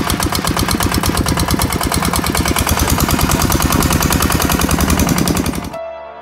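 Single-cylinder diesel engine of a kor yun (two-wheeled hand tractor) running with a rapid, even chugging. It cuts off abruptly near the end, where soft music takes over.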